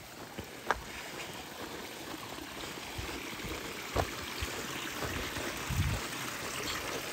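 Footsteps on a dirt road, a scattering of steps and scuffs, over a steady rushing hiss that grows a little louder after about two seconds.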